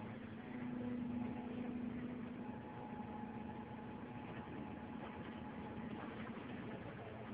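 Tracked excavator's diesel engine running steadily, with a steady hum that swells a little about a second in.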